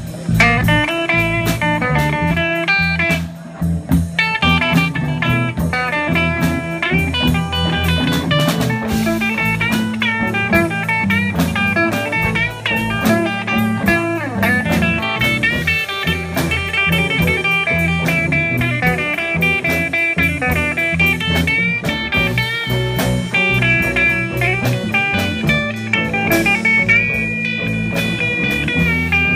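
Live blues band playing an improvised instrumental: an electric guitar solos in quick runs of bent notes over a drum kit, ending on a long held note.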